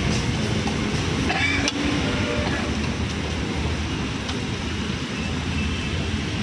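Steady roadside traffic noise from passing cars, with a couple of sharp clicks about one and a half and four seconds in.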